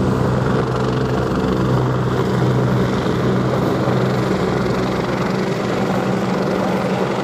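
Helicopter flying low past: a steady, even drone of rotor and turbine.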